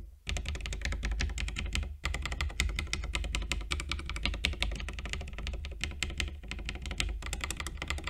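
Mechanical key switches on a small macro keypad in a 3D-printed case, typed rapidly in a dense run of clacks with a brief pause about two seconds in. This is the keypad's default, undampened sound, with no foam or sound deadening, which the maker calls a hollow clack.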